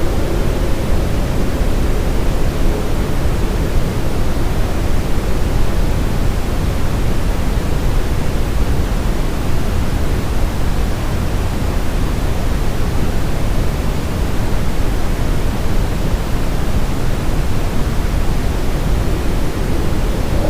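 Steady brown noise with reverb: an even rumbling hiss, strongest in the low end, with no breaks or strokes.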